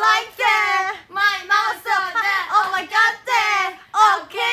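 High-pitched women's voices in a sing-song, playful vocalising, in short phrases of a few syllables each.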